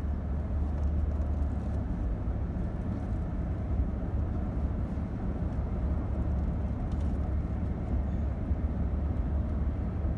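Steady low rumble of a vehicle driving along a road, heard from inside its cabin.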